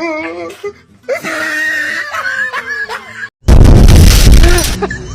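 A drawn-out, high-pitched screaming wail, then after a short break a sudden, very loud, harsh burst of noise lasting about a second before dying down.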